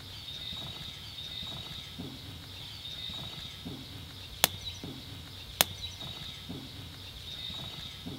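Two sharp cracks about a second apart, midway through, over a steady high-pitched hum.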